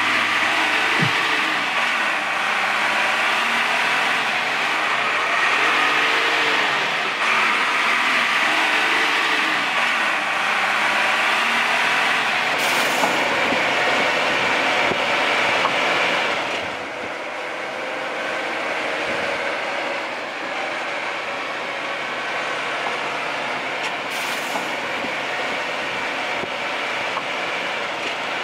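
Classic Mercedes-Benz LA 911 B truck driving along a road, its diesel engine running under steady road noise. The sound drops a little about sixteen seconds in.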